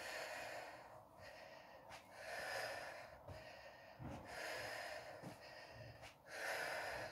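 A woman breathing hard from exercise, faint, with in- and out-breaths following each other about once a second.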